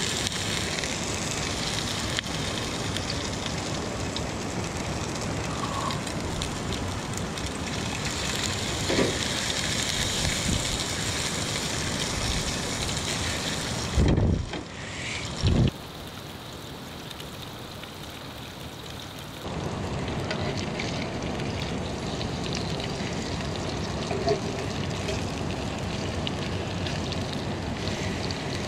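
Brook trout fillets sizzling in oil in a frying pan on a camp stove, a steady hiss. Two loud knocks come about halfway through, and the sizzle is quieter for a few seconds after them before picking up again.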